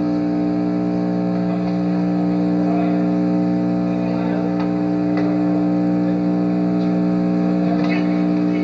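Steady low electrical hum on an old video recording's soundtrack, with a few faint knocks and indistinct voices beneath it.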